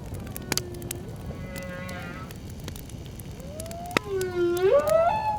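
Whale calls over a crackling campfire. A short low call comes about half a second in, then a fainter higher one. Near the end a long, loud call rises in pitch, while sharp crackles and pops from the fire keep going throughout.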